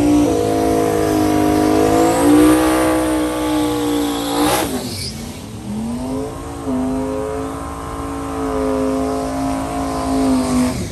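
Engine of a drag-racing vehicle running at high revs under full throttle. Its pitch drops sharply about four and a half seconds in, then comes back up and holds high until near the end.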